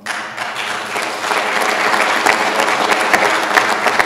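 Audience applauding, a dense steady clapping that starts suddenly as the speech pauses.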